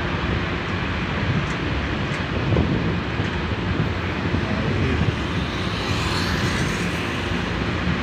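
Steady street traffic noise: the low rumble of car engines idling and running at a city intersection.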